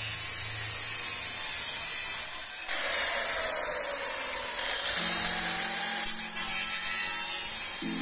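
A handheld electric power tool running with a steady high whine. A few seconds in, its pitch dips and then rises again.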